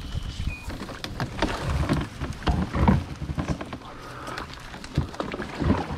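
Reed stems brushing, scraping and crackling against a plastic kayak hull as it pushes through a reed bed, in many irregular rustles and small clicks.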